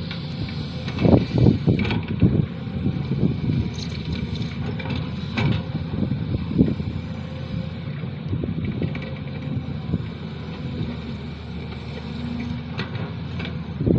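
Sany SY215C hydraulic excavator running steadily under a low diesel hum, with a few knocks and clanks from the machine at work, the loudest a little over a second in.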